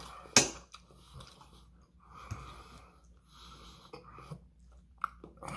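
A fork clicks sharply against a plate once just after the start. Then come a person's audible breaths and soft eating sounds between mouthfuls, with a few small clicks of the fork.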